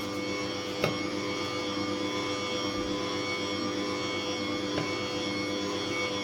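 Electric stand mixer running steadily, its motor humming as it mixes soft shortbread dough while flour is added. A light knock sounds about a second in, and a fainter one near the end.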